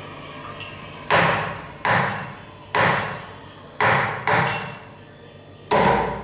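A heavy cleaver chopping chicken feet on a thick round wooden chopping block: six hard chops, roughly a second apart, each with a short ringing decay.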